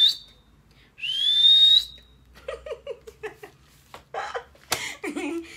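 A woman whistles: a short rising whistle right at the start, then a louder one about a second in that slides up in pitch and holds a high note before stopping.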